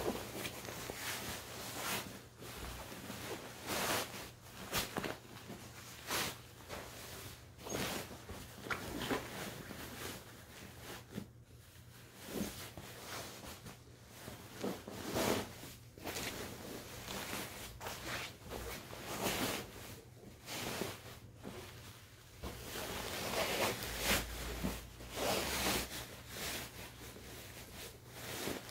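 Cloth rustling and swishing again and again at an uneven pace as a feather pillow insert is pushed and worked into a fabric pillow cover.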